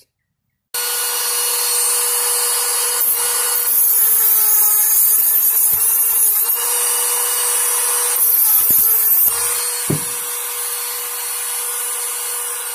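Dremel 8100 cordless rotary tool running a cut-off disc with a steady high whine, grinding old super-glue adhesive out of a groove in the steel vise screw. It comes in under a second in, with two louder, grittier stretches where the disc bites harder into the groove.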